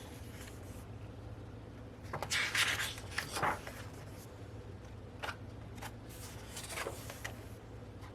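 Pages of a K-pop album's photobook being turned and handled, with a paper rustle about two seconds in and a few light taps and ticks later.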